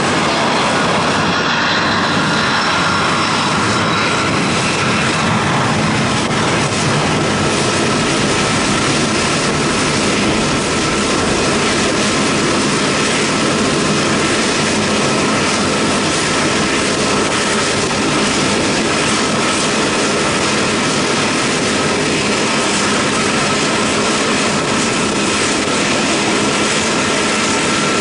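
Air France Airbus A380's four Engine Alliance GP7200 turbofans running at taxi power as the jet rolls slowly past. It is a steady jet noise with a thin, constant whine, holding an even loudness throughout.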